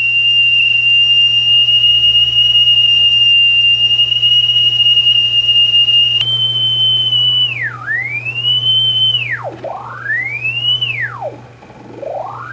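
A steady high test tone played back from tape on a Sony TC-200 reel-to-reel through speakers, with a low hum underneath. After about six seconds the pitch sags sharply and climbs back three times, deeper each time, as the tape speed drops and recovers, before settling high again near the end.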